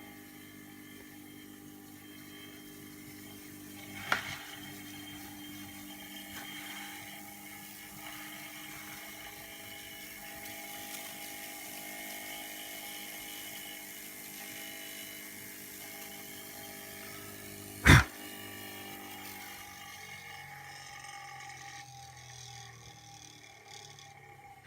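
Saito Heron's ball steam engine running: the spinning ball gives a steady whirring whine with a hiss of steam from its jets. A sharp click about four seconds in and a much louder sharp knock about eighteen seconds in; after that the whirring thins and fades somewhat.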